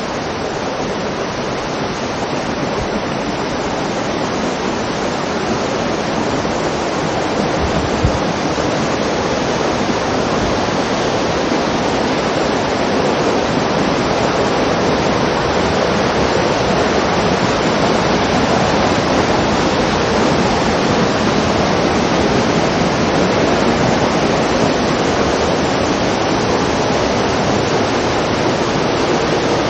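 Mountain stream and small waterfalls rushing through a rocky gorge: a steady, even rush of water that grows slightly louder over the first half.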